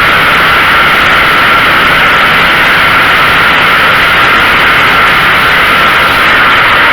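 Predator 212cc single-cylinder engine on a log splitter running loud and steady at full throttle, on its first test run after a carburetor cleaning and repair.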